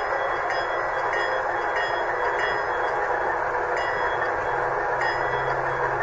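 Sound decoder in a model GE Dash 9 diesel locomotive playing a steady diesel engine running sound through a small speaker, with a faint regular ticking about every two-thirds of a second.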